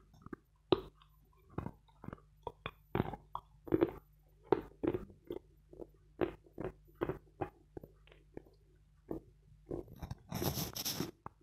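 Close-miked chewing of a hard, dry block of edible chalk: sharp crunches, two to three a second, as it breaks up between the teeth. Near the end comes a denser hissing rustle lasting about a second.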